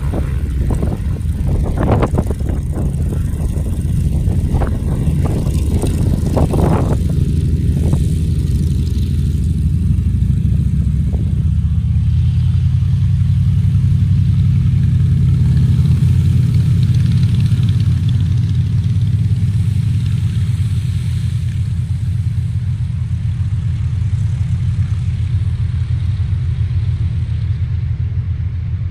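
Single-engine agricultural fire-fighting plane's propeller and engine running as it taxis away, a steady low drone that grows louder from about ten seconds in. Wind buffets the microphone in the first seven seconds.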